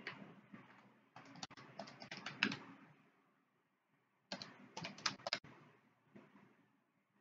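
Typing on a computer keyboard: two short runs of quick keystroke clicks, the first about a second in and the second a little past the middle.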